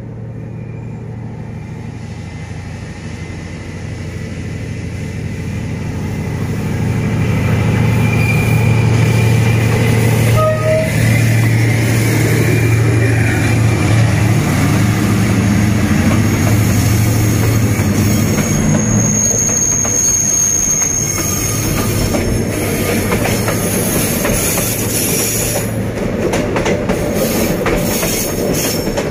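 Vietnam Railways D19E diesel-electric locomotive passing close by with its diesel engine running in a steady low drone that grows louder over the first several seconds. A high steady squeal from the wheels on the rails comes about two-thirds of the way through. Near the end the passenger coaches clatter over the rail joints.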